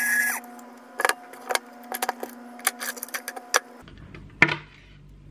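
Light metallic clicks, taps and rattles of the winch's steel line, hook and wire connectors being handled on a wooden bench. It opens with a high electric whine that drops in pitch and cuts off, and a steady low hum runs under the clicks until it stops a little before the end.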